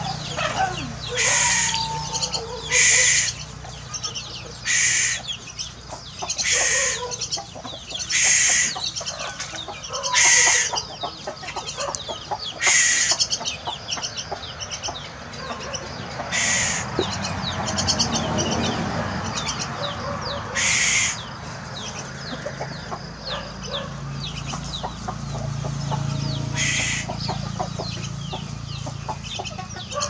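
Young common myna giving short, loud, harsh squawks about every two seconds, then further apart, as it begs to be hand-fed. Chickens cluck softly underneath.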